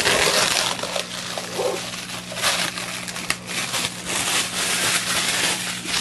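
Plastic wrap crinkling and rustling as it is pulled off a container and crumpled by hand close to the microphone. The crinkling stops suddenly at the end.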